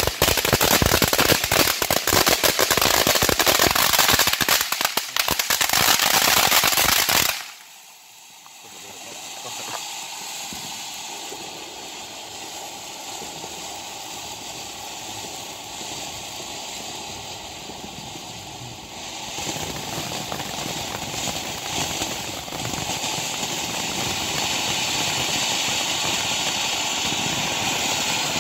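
Consumer ground firework fountains: a loud, dense crackling for about the first seven seconds that stops abruptly, then the steady hiss of a fountain spraying sparks, which steps up louder about twenty seconds in.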